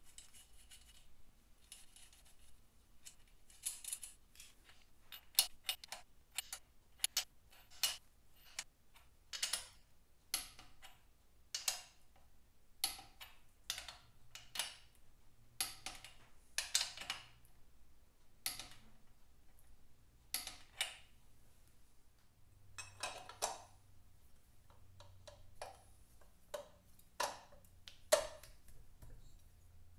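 Socket ratchet wrench clicking in short, irregular runs as it is swung back and forth on the cylinder head nuts.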